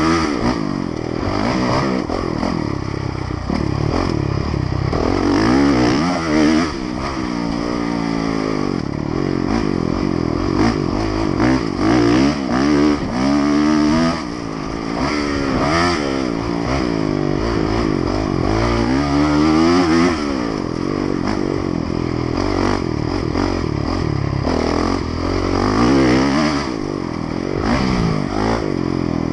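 Honda motocross bike's engine heard close up from on board, revving hard under racing throttle: the pitch climbs sharply again and again and drops back between, as the rider accelerates, shifts and rolls off for corners.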